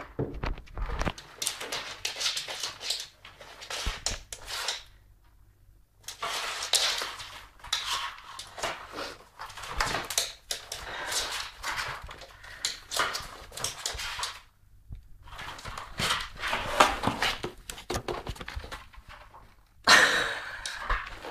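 A cat scrabbling and squeezing into a cardboard box through a small hole, its body scraping and rustling against the cardboard in repeated noisy bursts with short pauses. There is a sharper, louder burst near the end.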